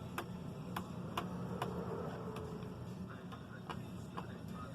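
Small screwdriver working screws out of the plastic bottom case of an HP laptop: irregular light clicks, about two a second, over a low background hum.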